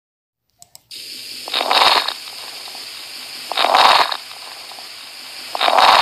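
Recorded lung sounds of coarse crackles heard through a stethoscope, starting about a second in: three noisy breaths about two seconds apart over a steady hiss, with a crackle like Velcro being opened. Coarse crackles signify fluid buildup.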